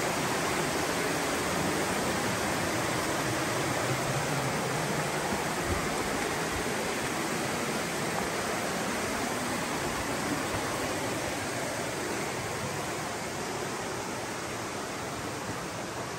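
Laurel Fork creek rushing over rocks in shallow rapids, a steady even rush of water that grows slightly fainter toward the end.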